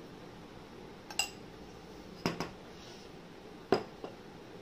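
Metal spoon clinking against a small glass bowl three times, about a second apart; the first clink rings briefly.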